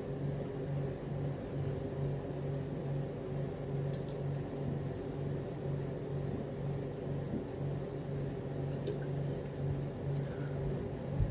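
Steady low hum of a running machine, with a throbbing tone that pulses about three times a second, and a few faint clicks.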